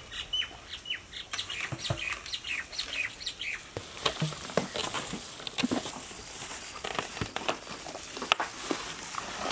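Small birds chirping in quick, repeated short falling notes for the first three seconds or so, then scattered clicks and taps of plastic cups and lids being handled and filled.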